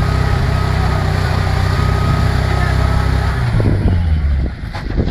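Off-road vehicle engine running steadily, its sound changing and dropping in level about four seconds in.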